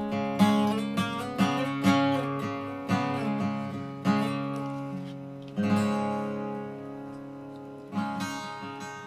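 Acoustic guitar music: chords strummed or plucked about once a second, each ringing out and dying away, with longer gaps between them in the second half.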